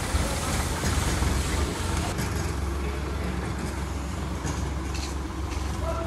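Diesel farm tractor engine running steadily at a low idle-like drone.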